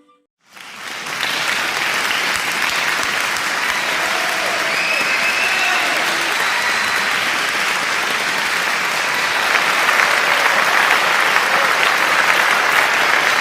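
Audience applause, a dense steady clapping that swells in over about a second after a brief silence, with a few faint voices within it.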